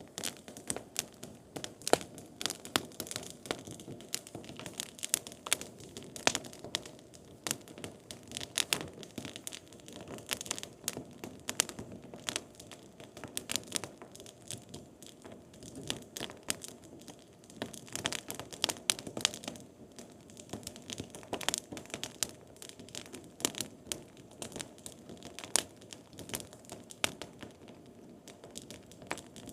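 Firewood burning in a campfire: irregular, sharp crackles and snaps over a steady low rush of flame.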